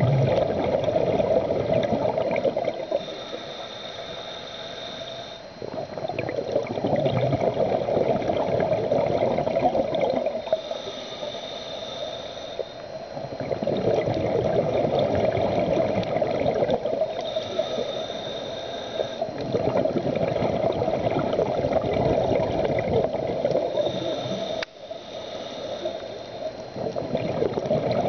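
Scuba diver breathing through a regulator close by, heard underwater: the bubbling rush of each exhale alternates with a quieter inhale that carries a thin, steady high whine, about four breaths in a slow, even rhythm.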